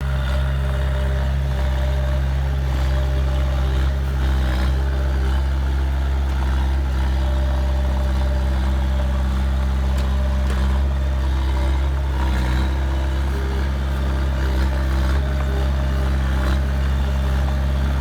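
Heavy diesel engine of earthmoving machinery running steadily, a deep hum at an even level.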